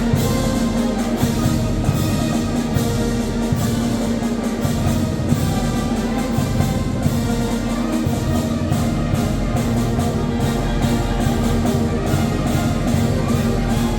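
Oaxacan Mixe wind band (banda filarmónica) playing: held brass and woodwind chords over steady, evenly spaced drum and cymbal strokes.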